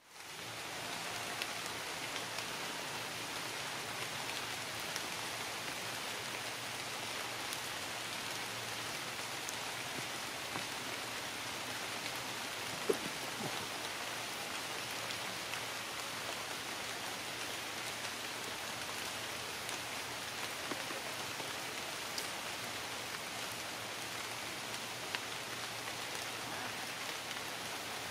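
Steady rain falling, with scattered individual drops and one sharper tap about halfway through.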